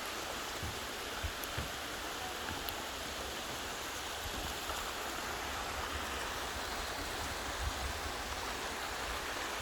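Steady rushing of a flowing stream, with a few soft low thumps.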